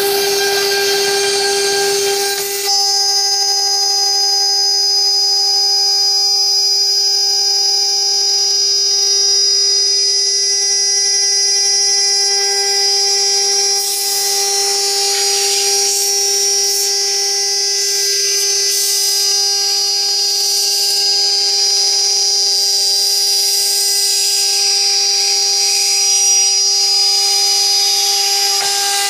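CNC router spindle running with a steady high-pitched whine as the bit cuts into a 2.5 cm thick wooden board. A louder rough hiss rises and falls over the second half.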